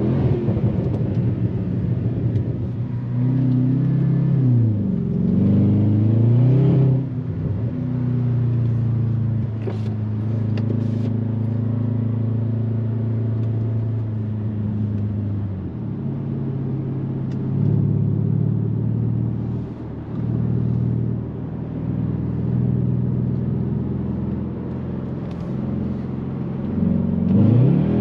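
Jaguar XFR's supercharged 5.0-litre V8 running under way: its pitch dips and rises a few times in the first seven seconds, holds steady for a long stretch, and climbs sharply again just before the end.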